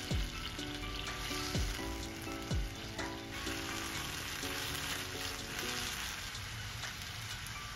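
Frozen japchae sizzling in a hot pan as it thaws and heats, a steady hiss. Background music with a soft beat plays over it.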